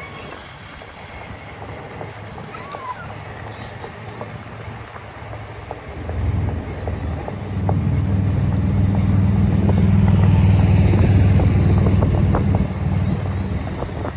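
Onewheel electric boards rolling along a concrete sidewalk: a steady rolling rumble and hum that grows much louder about six seconds in, holds, and eases off near the end.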